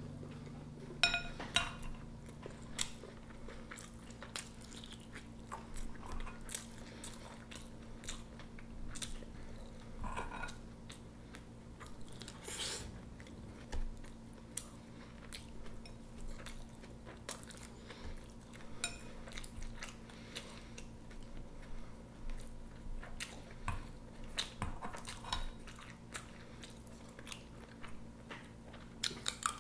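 Close-up eating sounds: a metal spoon and chopsticks clinking and scraping against a ceramic rice bowl in irregular light taps, with chewing between.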